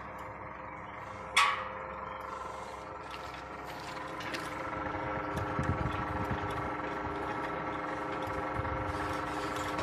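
Beninca Bull 8 sliding-gate operator running, its motor and gears driving the gate along the toothed rack with a steady whine that grows a little louder from about four seconds in. One sharp metallic click about a second and a half in.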